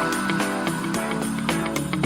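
Music with a steady beat and sustained pitched notes.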